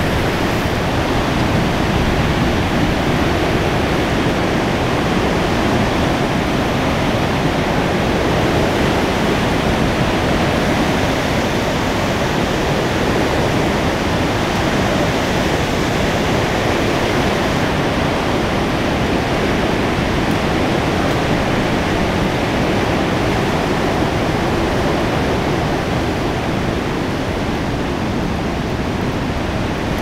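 Heavy thunderstorm rain falling, a loud, steady noise that holds the same throughout.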